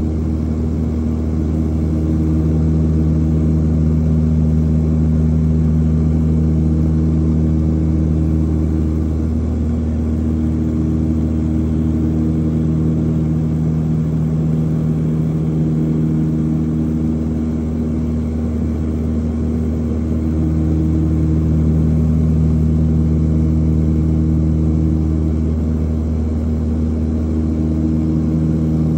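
A propeller airplane's engine and propeller droning steadily in flight, heard inside the cabin. It is a low hum in which some tones slowly swell and fade every several seconds.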